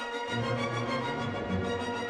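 Background music with orchestral strings; a low bass part comes in about a quarter of a second in.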